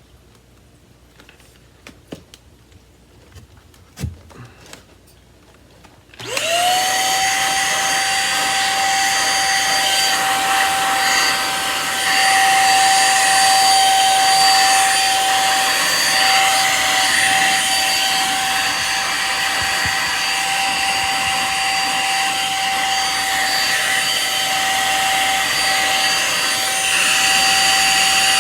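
A few handling clicks and knocks, then about six seconds in the Samsung CycloneForce upright vacuum switches on: its motor whine rises quickly to a steady high pitch and keeps running with the rush of suction.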